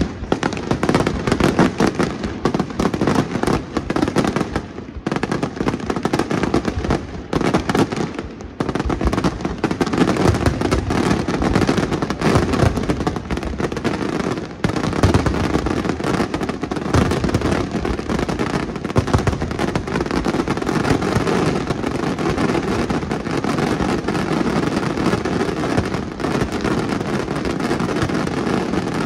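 Aerial fireworks display: a dense, near-continuous barrage of shell bursts, the reports running together into a steady rumble with sharp cracks on top.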